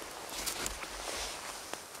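Soft rustling and crunching of snow and a waterproof jacket as a person kneels down in the snow, with a dull low rumble about half a second in.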